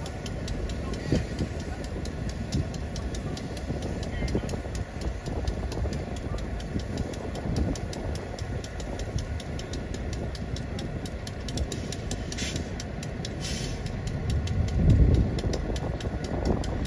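Diesel locomotive engine idling, a steady low rumble that swells briefly louder near the end.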